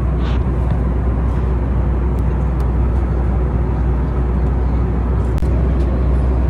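Steady cabin noise of a Boeing 737 MAX 8 in cruise: a deep rumble under an even rush of airflow, with a few faint clicks.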